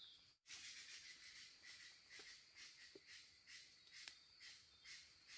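Faint insect chorus pulsing about twice a second over a steady high whine, with a few faint clicks.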